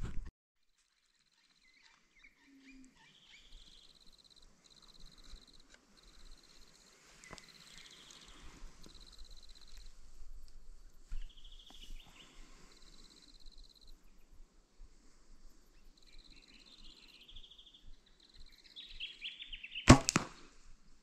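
A single sharp, loud crack of a bow shot, about a second before the end. Before it there is a long quiet stretch, with faint high trilling calls starting and stopping and a few chirps.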